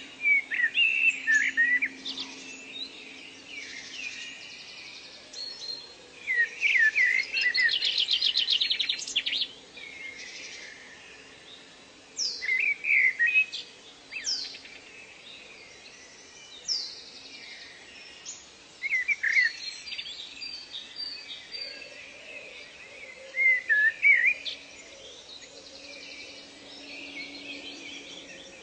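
Several wild birds singing and calling in turn: short chirps, fast trills and sharp down-slurred whistles. A faint steady hum runs underneath.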